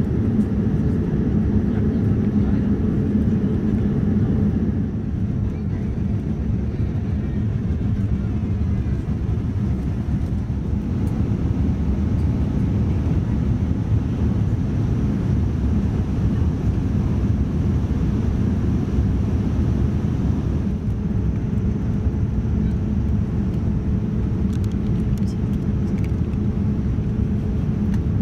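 Airliner cabin noise of a Boeing 787-9 in cruise: a steady low drone of engines and rushing air, with a constant low hum running through it.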